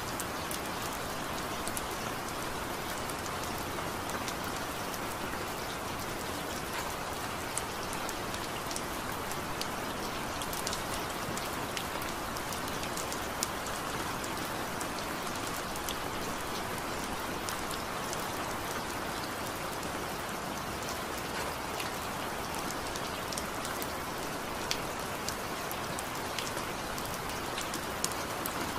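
Steady rain falling: an even hiss with sharp ticks of single drops now and then.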